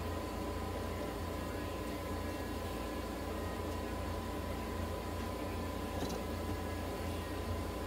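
Steady low hum and hiss of the nebulizer and oxygen equipment running for the cat's inhalation therapy, with a thin constant whine above it.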